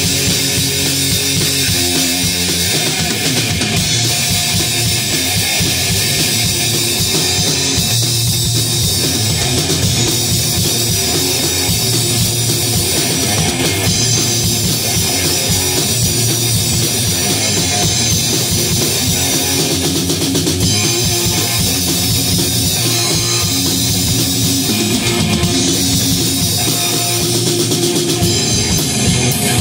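Electric guitar and a drum kit playing a rock song together, with the guitar riffing over a steady drum beat. The guitar is a 1987 Explorer fitted with Gibson Burstbucker pickups for a snarlier tone.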